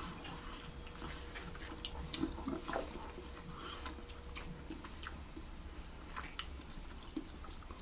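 Quiet eating sounds: soft chewing with scattered small clicks and smacks from mouths and from kebab skewers being handled.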